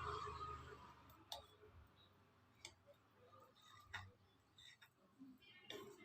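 Near silence with a few faint, scattered clicks and taps of kitchenware being handled.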